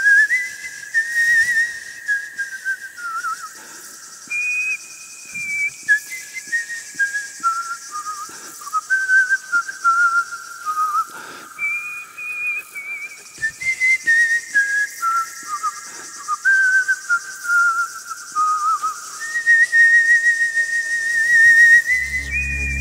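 A tune whistled by a person, one melody line in held notes with a slight wobble, stepping up and down. Electronic music with a heavy bass comes in right at the end.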